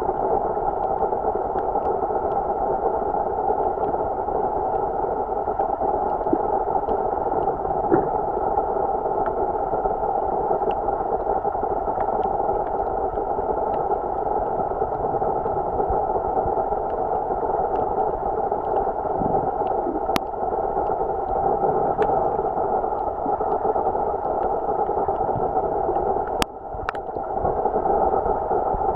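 Underwater ambience recorded through an action camera's waterproof housing: a steady muffled hiss, with scattered faint clicks and a sharper click near the end.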